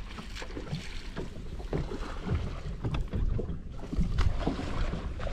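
Wind buffeting the microphone over water lapping against a boat's hull, with a low steady rumble and a few short knocks.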